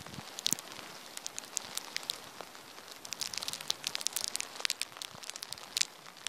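Wind-driven snow striking close to the microphone during a snow shower: a dense, irregular crackle of small ticks, thickest about three to five seconds in, over a steady hiss of wind.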